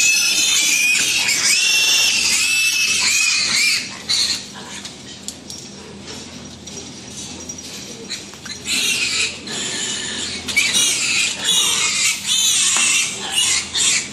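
Piglets squealing in high, shrill screams as they are grabbed and lifted for injections. The squealing is loud for the first four seconds, dies down for a few seconds, then is loud again from about nine seconds in.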